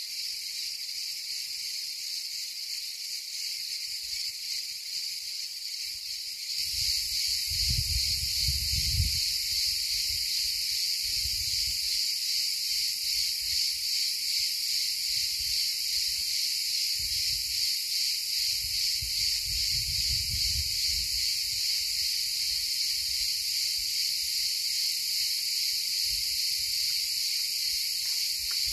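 Insects chirring in a dense, steady, high buzz that grows louder about six seconds in. Low rumbles come and go beneath it, around eight seconds in and again near the twentieth second.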